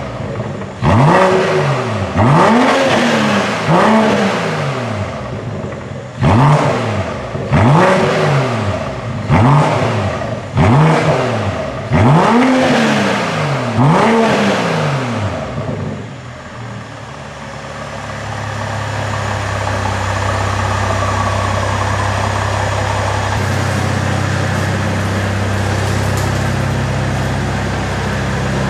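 BMW M440i's B58 turbocharged straight-six, breathing through an Akrapovič four-pipe exhaust with HJS downpipe and Eventuri intake, revved stationary in about ten quick blips, each a sharp rise and fall in pitch. After about 16 seconds the revving stops and a steady low drone follows.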